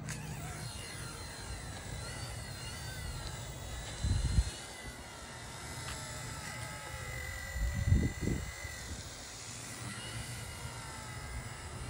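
E129 radio-controlled helicopter in flight, its electric motor and rotors giving a thin whine that wavers up and down in pitch with the throttle. Two brief low rumbles, about four and eight seconds in, are louder than the whine.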